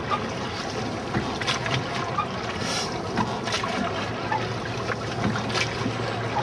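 Wooden rowboat being rowed by two boatmen: a steady rushing noise of the boat moving over the water, with scattered short knocks from the oars.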